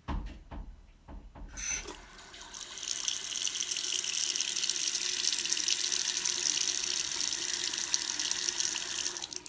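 Delta two-handle bathroom faucet turned on: a few low knocks, then water running steadily into the sink from about a second and a half in. The water shuts off near the end.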